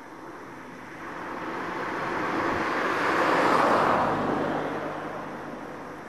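A car passing by. Its tyre and engine noise swells to a peak about three and a half seconds in and then fades away.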